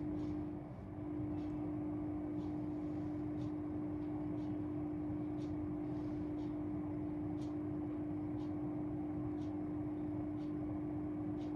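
Room tone with no speech: a steady low hum and a faint tick about once a second.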